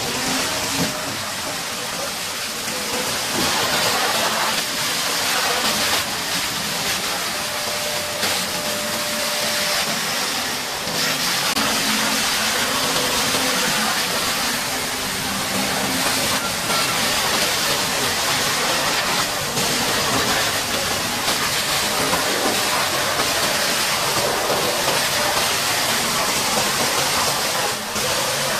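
Steady hiss of a high-pressure water jet spraying, with a faint engine hum underneath.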